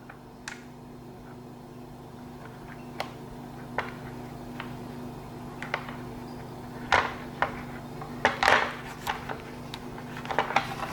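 Needle-nose pliers and a rubber grommet clicking and scraping against plastic as the grommet is levered into its hole: scattered single clicks at first, then quick clusters of clatter in the second half. A steady low hum runs underneath.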